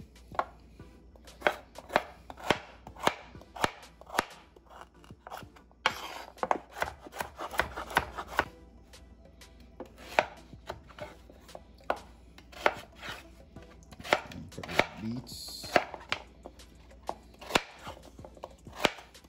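Knife cutting raw beetroot on a bamboo cutting board: sharp, irregular knocks of the blade striking the board, one or two a second, coming faster for a couple of seconds partway through.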